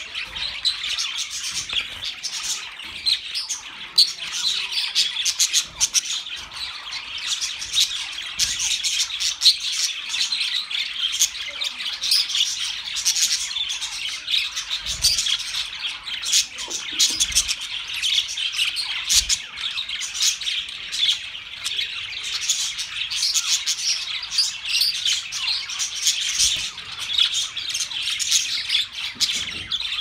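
A flock of budgerigars chattering and chirping together in a dense, continuous stream of short, high calls.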